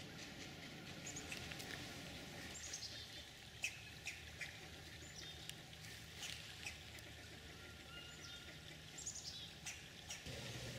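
Small birds chirping faintly: short, high chirps, many falling in pitch, scattered throughout, with a few light clicks.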